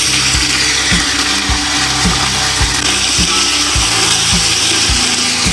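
Hot oil with golden-brown fried onions in an aluminium pot sizzling loudly as water is poured onto it and stirred in. Background music with a steady beat plays underneath.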